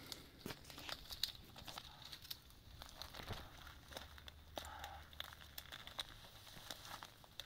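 Faint rustling and crackling with scattered sharp clicks.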